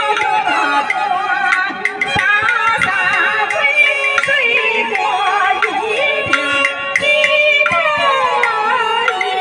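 A woman sings a xiaosheng (young male role) part in Chinese opera style into a handheld microphone. Instrumental accompaniment plays under her voice, with sliding melodic glides and sharp percussion clicks.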